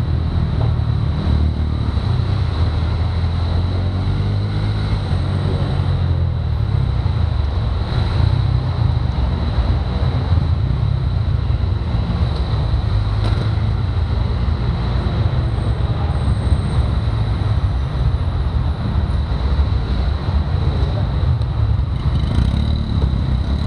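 Go-kart running, heard from its onboard camera: a steady low rumble with a thin, steady high whine over it.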